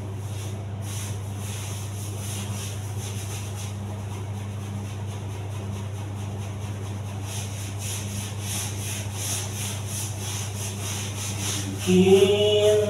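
A small hand brush scrubbing ceramic floor tiles in quick, rhythmic scratchy strokes, working cement and paint splatter off the tile, over a steady low hum. Music comes in near the end.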